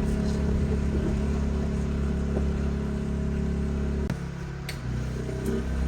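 Portable generator engine running steadily with a low, even drone. A sharp click comes about four seconds in, and the sound dips briefly.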